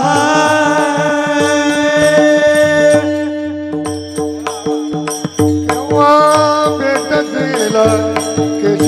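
Devotional kirtan music: a male singer holds a long, high, wavering note over a steady harmonium drone with mridang drum strokes. The voice drops out for a few seconds in the middle, leaving the drumming, then the singing returns.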